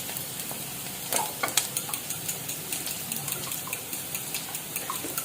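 Fat sizzling in a hot frying pan as it heats, with a few sharp crackles and pops about a second and a half in.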